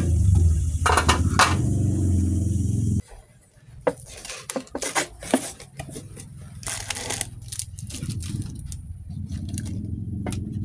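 A steady low hum with a few clicks for about three seconds, then, after a sudden cut, a plastic instant-noodle packet crinkling and crackling as it is torn open. The low hum comes back near the end.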